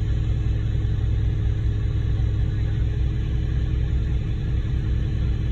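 Ready-mix concrete truck's diesel engine running steadily at idle, a constant low rumble.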